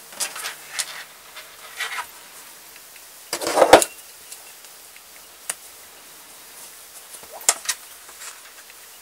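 Handling noises as a fabric pouch and a metal hand-held snap press are picked up and positioned: fabric rustles, then a short clatter about three and a half seconds in, the loudest sound, and a few sharp clicks and knocks near the end.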